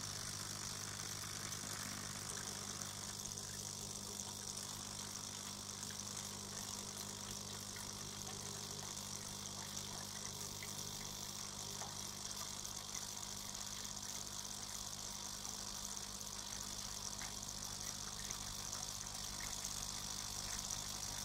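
Old coffee-machine water pump, fitted with a membrane regulator and outlet valve, running steadily as it pumps water, a constant hum with a high hiss over it.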